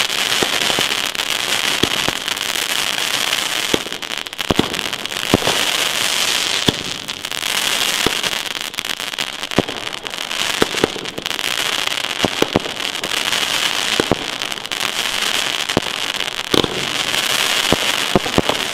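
PyroProdukt 7-16 crackling crossette firework battery firing: dense, continuous crackling with many sharp cracks as shots launch and the comets split.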